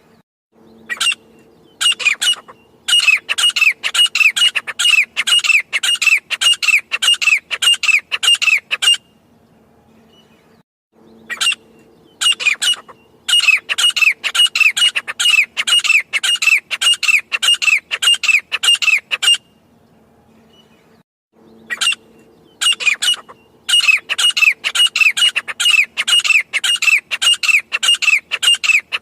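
Grey francolin calling: a fast series of harsh, repeated notes, about two to three a second, in long bouts broken by pauses of a few seconds.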